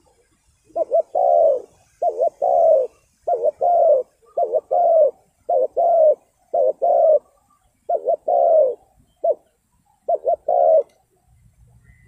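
Spotted dove cooing: a phrase of two short coos and a longer rolling coo, repeated about eight times at an even pace.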